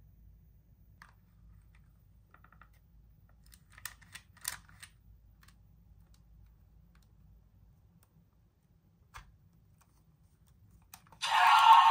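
A few faint clicks and taps of toy packaging being handled. Then, near the end, a loud electronic dinosaur roar from a sound-effect toy figure starts up.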